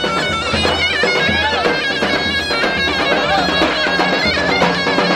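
Live folk dance music for a halay line dance: a shrill, reedy melody in the manner of a zurna over a steady, repeating drum beat.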